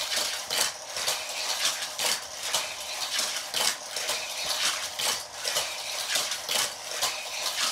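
Die-cast Hot Wheels toy cars clinking and rattling on a plastic loop track, an even clatter of about two clicks a second.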